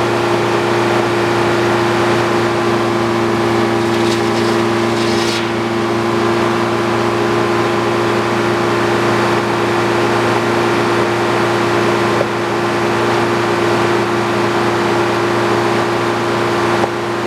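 An old Frick circular sawmill running, a loud steady mechanical hum, with a short burst of higher hiss about four seconds in.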